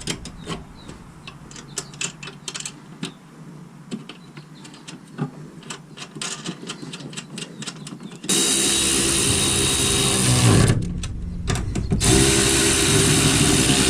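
Light clicks and knocks of parts being handled, then a cordless power tool spinning nuts onto the coilover's top-mount studs in two steady runs of about two seconds each, snugging them before final torque.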